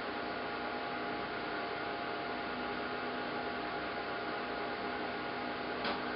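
Central vacuum running with an Imperium hand-held turbo tool attached: a steady rushing hiss of suction with a constant hum. There is a brief knock near the end.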